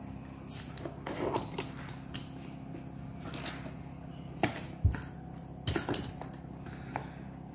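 Small handling clicks and taps as a 3.5 mm jack plug is fitted into the socket of a wrist-worn laser therapy device and the device and its cable are moved about, with the sharpest clicks between about four and a half and six seconds in and a dull thump near five seconds.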